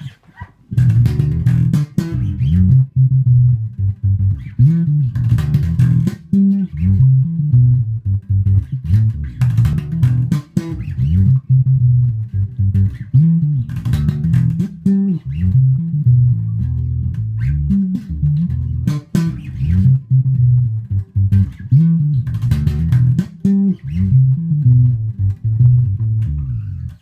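Solo electric bass guitar playing a fast sebene groove in slap style: a busy run of low notes with sharp slapped and popped clicks throughout.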